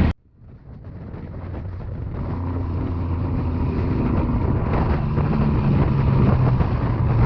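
Heavy truck's diesel engine running steadily under way. It cuts out abruptly at the start, then fades back up over a couple of seconds.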